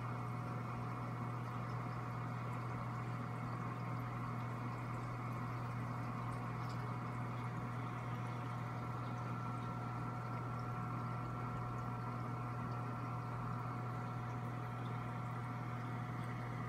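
Steady low electrical hum of reef-aquarium pumps with a faint, even hiss of circulating water and a couple of thin steady tones above it.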